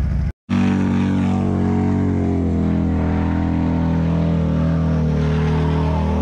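Motorcycle engine held at steady high revs during a burnout, a continuous loud drone. The sound drops out for a split second near the start.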